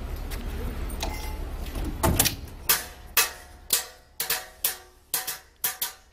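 Background music starting about two seconds in: a steady run of percussive notes with ringing tones, about two a second, over a low steady background noise.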